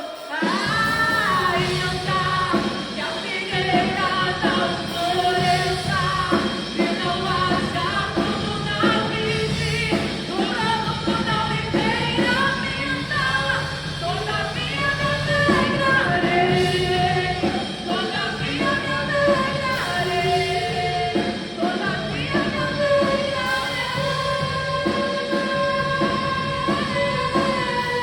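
A contemporary Christian worship song performed live: a lead vocal sung over a full band with drums and bass keeping a steady beat.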